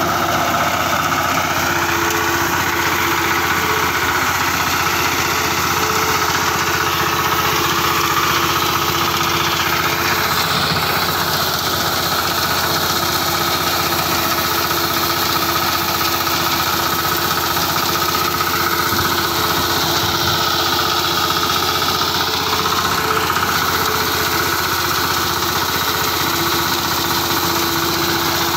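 Small petrol engine of a walk-behind crop reaper running steadily under load as the machine cuts standing wheat.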